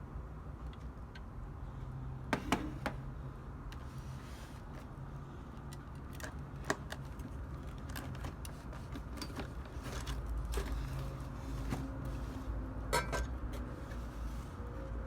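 Scattered clicks and light plastic rattles of an RC bulldozer toy and its packaging being handled, over a low steady hum.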